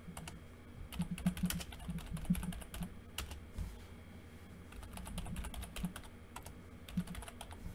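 Typing on a computer keyboard: irregular key clicks in short quick runs, with a pause of a second or so about halfway through.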